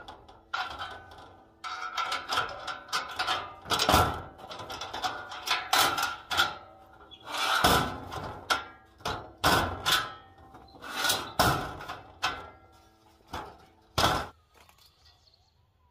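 Metal knocking and clanking against metal in a dozen or more irregular strikes, each leaving a brief metallic ring. The strikes stop a little before the end.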